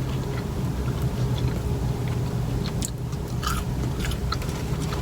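A person chewing a mouthful of fast food, with small wet mouth clicks, over a steady low hum inside a car.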